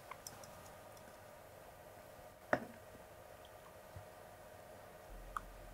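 A few faint clicks and soft taps from stainless steel tongs as grilled sausages are lifted from a metal bowl and laid into bread rolls. The clearest click comes about halfway through.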